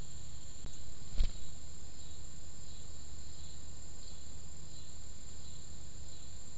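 Faint insect chirps, repeating every half second or so, over a steady low hum and hiss. A single sharp click about a second in.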